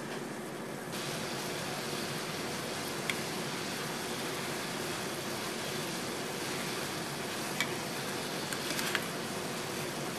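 Steady hiss and fine bubbling of a pot of water coming to a simmer on a gas burner, a little brighter from about a second in. A few light clicks as a mesh skimmer touches the pot while skimming off scum.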